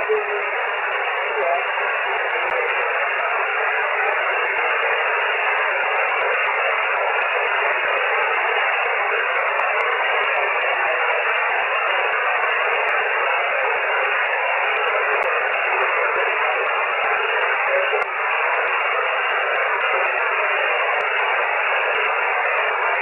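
Steady hiss of band noise from a shortwave amateur radio receiver, cut by its receive filter to a narrow, thin-sounding band, with no clear station above it.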